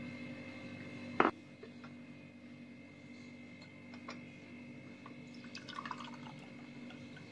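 Faint drips and small ticks of the strained herbal drink dripping into a glass, with one sharp click about a second in.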